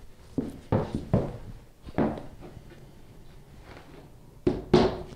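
Hammer driving nails into pressed-wood particleboard underlay to tack it to the subfloor. Four sharp strikes come in the first two seconds, then two more near the end.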